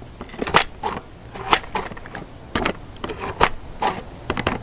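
Plastic hand-operated cherry pitter worked again and again: its spring-loaded plunger pressed down and let back up, a run of sharp plastic clacks, about two a second, as the cherry stones are punched out.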